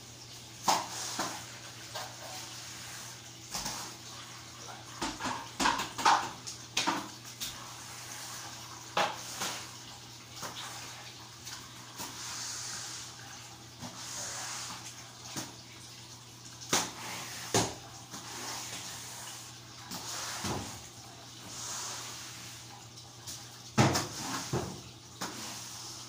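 A long-handled broom scrubbing a wet tiled floor: irregular swishing strokes with sharp knocks and clatters, over a steady low hum.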